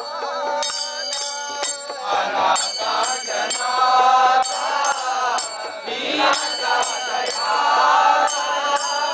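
A group of men singing a devotional chant together, kept in time by small brass hand cymbals clashed in a steady rhythm.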